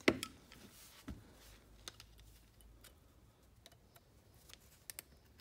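Small metallic clicks and ticks as a piston-pin circlip is worked into its groove in a diesel piston: a sharp click at the start, another about a second in, then scattered lighter ticks.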